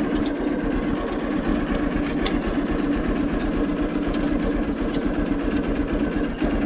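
Hero Xtreme 200R's single-cylinder engine idling steadily, a very loud idle noise that the owner notes is typical of this bike when stopped.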